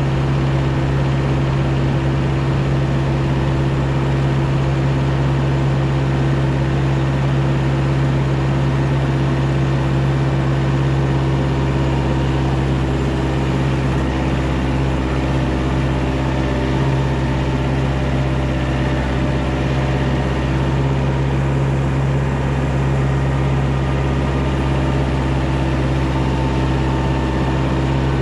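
A 35-horsepower TYM compact loader tractor's diesel engine running steadily at an even pitch as the tractor drives along in medium range on its hydrostatic transmission.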